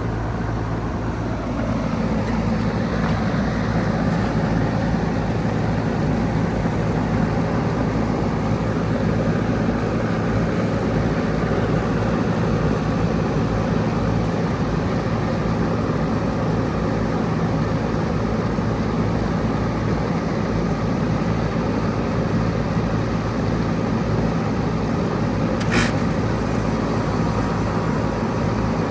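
Outdoor heat-pump units running: a steady hum with the rush of a condenser fan. Near the start a tone falls in pitch and the rush grows a little louder about two seconds in; a brief click comes near the end.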